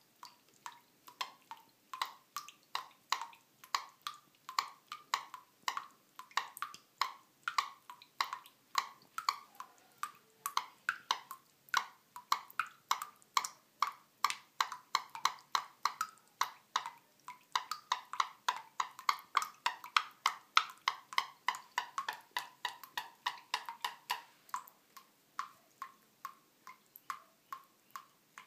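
Water dripping from a bathroom sink faucet: a steady run of short plinking drops, about three or four a second.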